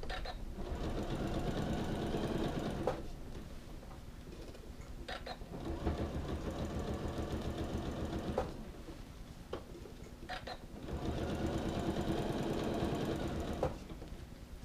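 Janome sewing machine stitching in three runs of about three seconds each, with quieter pauses and a click or two between runs.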